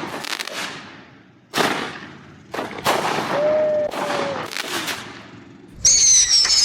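Consumer fireworks going off: a series of sharp bangs, each trailing off in crackle. A brief whistle sounds in the middle, and near the end a loud high whistle starts and slowly falls in pitch.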